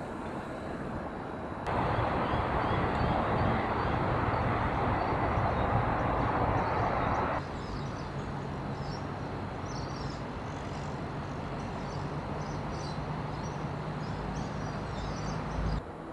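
City ambience in edited segments. About two seconds in, a loud steady rushing noise like passing traffic starts, then cuts off abruptly a few seconds later. After that comes a quieter low steady hum with small birds chirping, until a sudden cut near the end.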